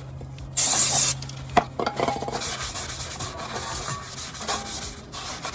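Scraping and rubbing of tools on rusty rear-brake parts. There is a short, loud hiss about half a second in and a sharp click a moment later, then a few seconds of scraping with many small rapid ticks.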